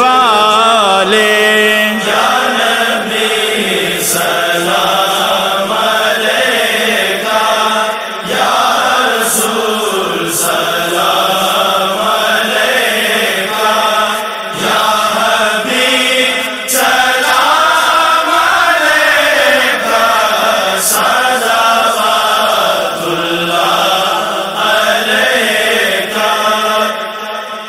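Male voices chanting a devotional naat melody over a steady held drone, fading out at the end.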